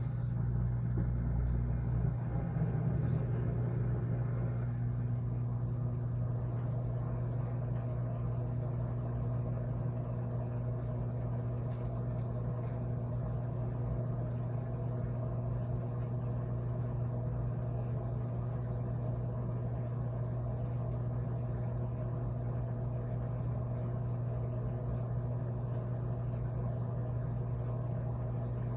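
Washing machine running with a steady low motor hum.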